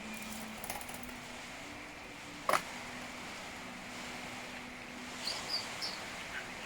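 A steady low hum with one sharp click about two and a half seconds in, and a few short, high chirps from a pet bird near the end.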